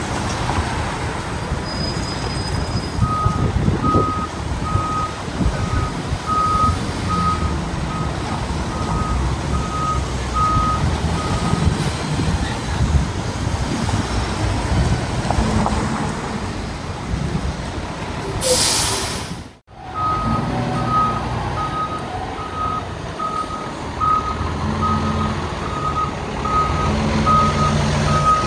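Fire engine backing up: its reversing alarm beeps steadily a little more than once a second over the low rumble of its engine. The beeping pauses partway through, a loud hiss of air brakes comes, and then the beeping starts again.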